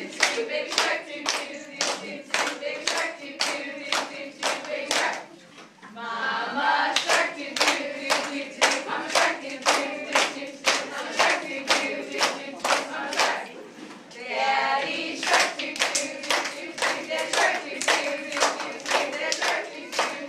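A group of teachers and young children clapping together in a steady rhythm, about two claps a second, with voices singing along. The clapping breaks off briefly twice, about six seconds in and again about fourteen seconds in, and the singing is heard on its own.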